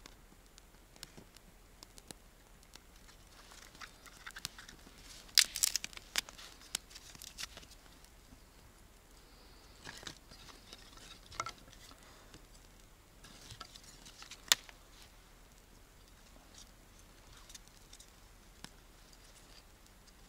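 Scattered snaps, crackles and crinkling of dry kindling as a campfire is laid and lit, in three loose clusters with the sharpest snaps about five to seven seconds in and a single loud snap near the middle.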